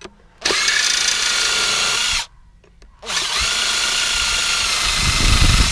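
Power drill running in two steady bursts with a fixed whine, a short pause between them, while backing screws or bolts out of an electric motor housing. Near the end of the second burst the sound gets heavier and lower as the drill comes under more load.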